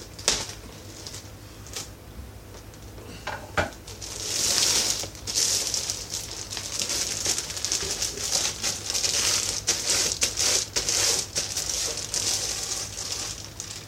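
Packaging being handled during an unboxing: a couple of sharp clicks in the first few seconds, then steady crinkling of plastic wrapping and rustling as the kit is pulled out of its box.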